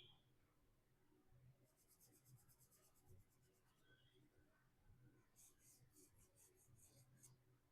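Faint soft pastel strokes scratching on paper, quick back-and-forth strokes in two runs: one about two seconds in, the other from about five and a half seconds on.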